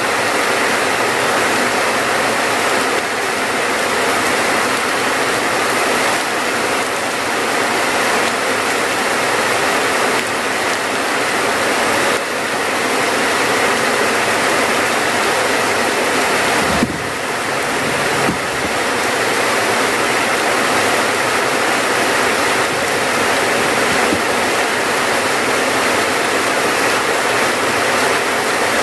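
Steady rain, an even hiss of falling water with no let-up, briefly dipping in level about seventeen seconds in.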